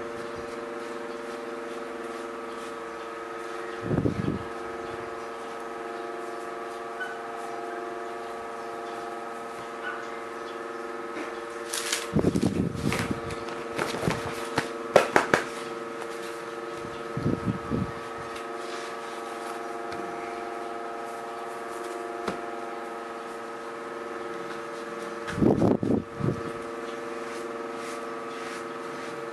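Scattered short bursts of rustling and tapping as hands press and rub over a diamond-painting canvas, loudest in a cluster about halfway through, over a steady hum.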